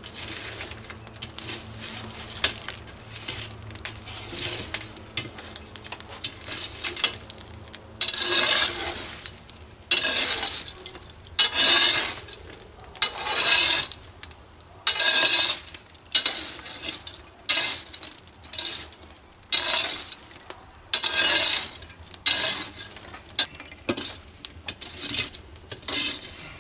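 Burning wood and embers scraped and raked across the floor of a wood-fired pizza oven with a makeshift wooden tool, in repeated strokes. From about eight seconds in, the strokes get louder and come roughly every second and a half.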